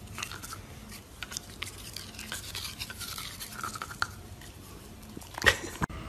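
Dachshund chewing on a plastic toothbrush: bristles and handle scraping and clicking against its teeth, with one louder click near the end.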